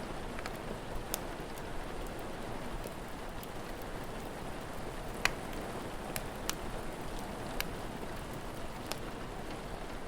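Steady rain with a wood fire crackling over it: scattered sharp pops and snaps, the loudest a little after five seconds in.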